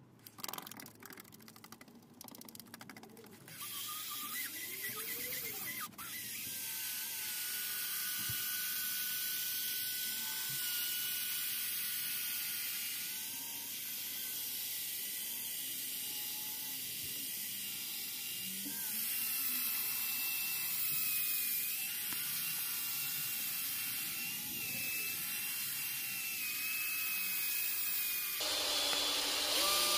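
Cordless machine polisher running on a plastic headlight lens with swirl-remover compound: a steady motor whirr with a high whine that wavers in pitch. A few seconds of handling clicks and rattles come before it starts.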